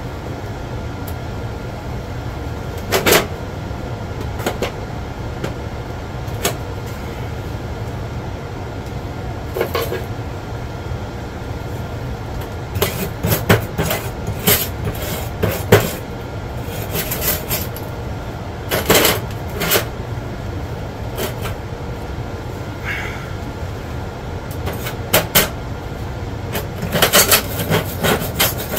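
Wire brush scrubbing a fresh weld on a broken metal torsion-bar chair spring. It comes in short, scattered scraping strokes, a few at first and then in clusters through the second half, over a steady low hum.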